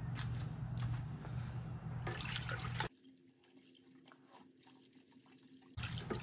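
Water sloshing and splashing in a plastic bucket as a cotton-gauze air filter is pushed under and worked around by hand, over a steady low hum. The sound drops away abruptly about three seconds in and comes back near the end.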